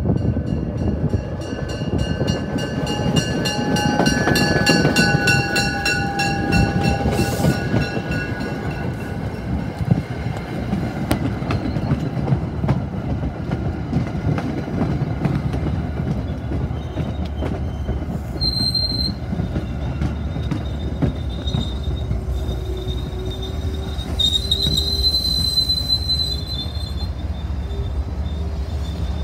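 Railroad cars rolling past with a steady rumble and clatter of wheels on rail. High-pitched wheel squeal runs through the first several seconds and returns briefly a couple of times later on.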